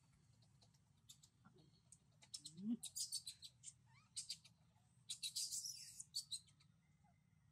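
Faint animal chirping: two clusters of rapid, very high-pitched chirps, each lasting about a second or so, the first about two seconds in and the second about five seconds in. A short, low call rising in pitch comes just before the first cluster.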